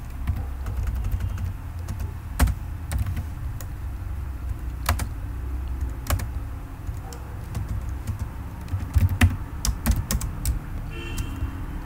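Computer keyboard typing: scattered, irregular keystroke clicks that bunch into a quicker run near the end, over a steady low hum.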